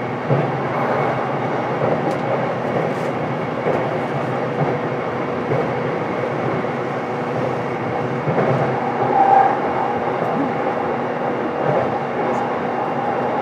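Steady running noise of a JR East E233 series electric multiple unit, heard from inside a motor car: a constant hum with a few faint clicks.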